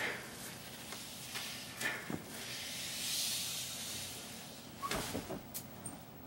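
Thin plastic bag over a person's head crinkling against his face while he breathes hard inside it, with a long hissing breath about three seconds in and a few sharp crackles near the end.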